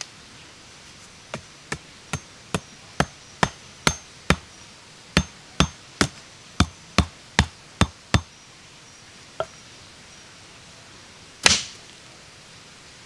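A hand tool striking over and over: about sixteen sharp blows at a steady two to three a second, with one short break. After a pause comes a single lighter blow, then one heavier strike that rings on a little longer near the end.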